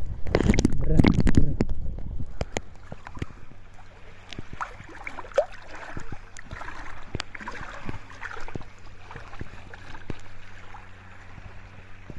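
Shallow sea water splashing and sloshing against a camera held at the surface, loudest in the first two seconds as it dips under, then lighter lapping with scattered small splashes while a dog swims.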